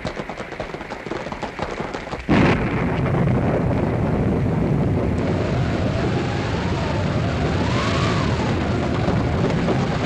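Radio sound-effects storm: a rapid clatter of knocks, then a sudden loud thunder crash about two seconds in, followed by a steady rumbling rush. From about the middle on, a hand-cranked wind machine adds a howl that rises and falls in pitch.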